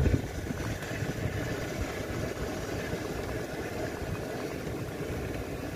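A vehicle engine idling steadily, a low even rumble.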